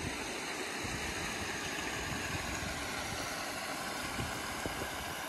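River water rushing over a small limestone-ledge waterfall in a shallow stream: a steady, even rush with an uneven low rumble underneath.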